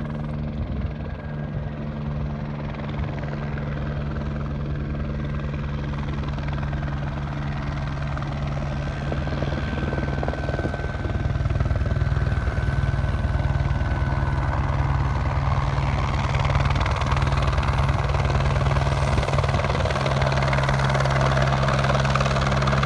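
Helicopter flying in: the rapid beat of its rotor and the steady engine sound growing louder as it approaches, with a clear rise in loudness about halfway through.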